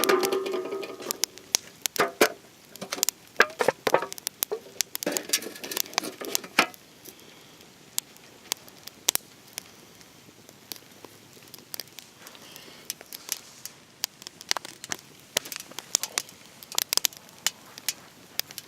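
Rain pattering, with a small fire crackling as cloth chars in a tin over it: irregular sharp ticks and crackles. Louder stretches come near the start and again around five to six seconds in.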